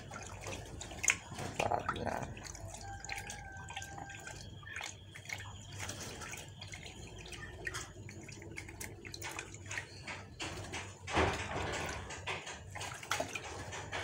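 Water splashing and dripping in a plastic basin as a dove is dunked and washed by hand, in irregular small splashes with a louder stretch of sloshing near the end.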